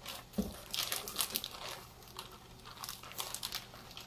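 Plastic zip-top bag holding marinated steak crinkling as it is handled, in irregular short rustles.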